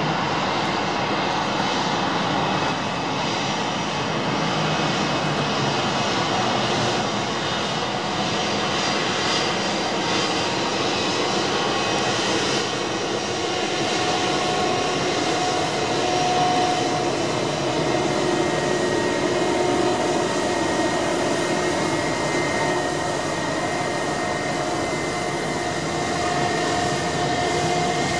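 Airbus A320-232's IAE V2500 jet engines running at low taxi thrust, a steady rushing noise with a high whine over it.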